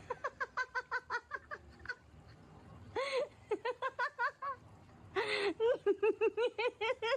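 High-pitched giggling laughter in three runs of quick 'ha-ha-ha' pulses, about six a second, each run starting with a sharp breath.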